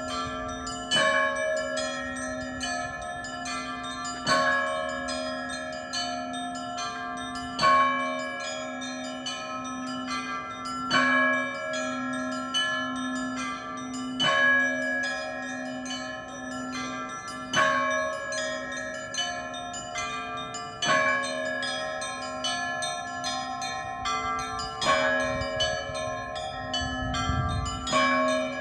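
Monastery bells rung together in a repeating pattern: a loud strike about every three seconds over quicker, steady chiming of several smaller bells, all ringing on and overlapping.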